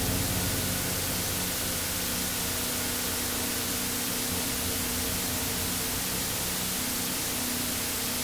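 Steady hiss of noise with a few faint held low tones underneath: a droning ambient soundtrack.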